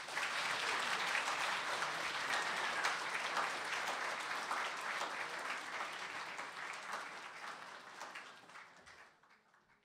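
Audience applauding at the close of a lecture, the clapping dying away over the last few seconds.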